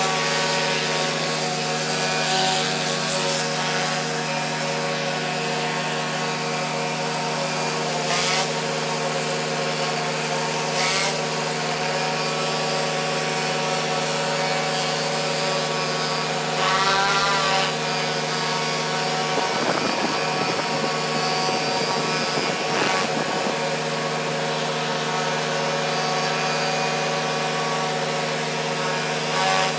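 Pressure washer running steadily while a rotary surface cleaner spins and sprays water over mahogany deck boards: a constant mechanical drone with a hiss of spray.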